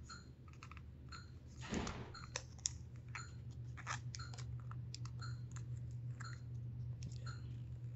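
Small scattered clicks and taps from fingers working a flat flex ribbon cable into the plastic connector on an LCD display board, with a short rustle about two seconds in, over a faint low hum.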